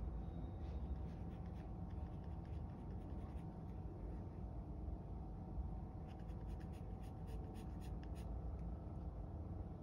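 Pencil scratching over drawing paper in quick shading strokes, busiest about six to eight seconds in, over a steady low hum.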